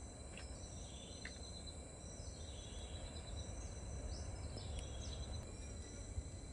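Countryside ambience: insects giving a steady high drone, with birds chirping briefly several times over it and a low rumble underneath.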